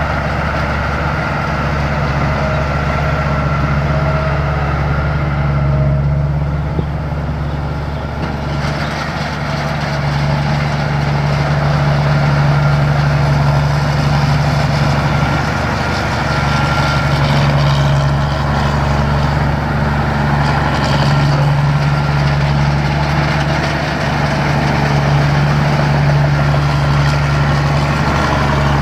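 Combine harvester's six-cylinder Mitsubishi 6D16 turbo diesel running steadily under a constant engine speed, easing briefly about eight seconds in.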